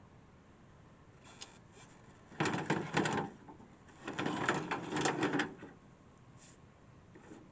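Plastic casing of a window air conditioner rattling and scraping as it is worked loose and handled, in two bursts of clatter about a second apart.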